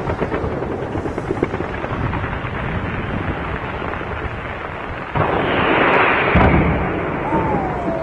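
Fireworks display: a continuous rattle of rapid bangs and crackles, then a loud hissing burst about five seconds in and a heavy boom about a second later.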